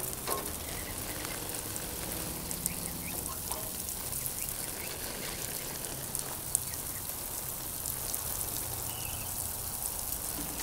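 Water sprinkling from the rose of a metal watering can onto tomato plants, a steady, even spatter.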